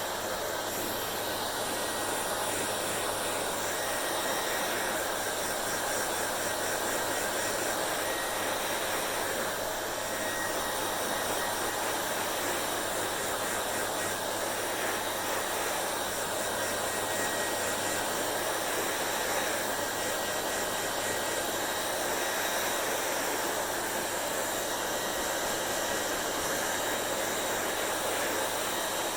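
Hair dryer running steadily: an even rush of blown air over a constant low motor hum, with no change in speed.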